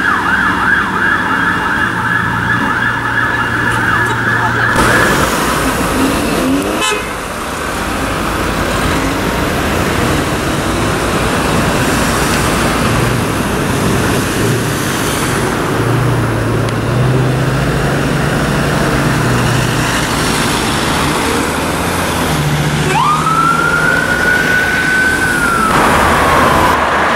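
Emergency vehicle sirens in traffic. A fast, rapidly repeating yelp sounds for the first five seconds and stops abruptly. Then comes steady road traffic with engine hum, and near the end a siren winds up, holds its pitch and falls away.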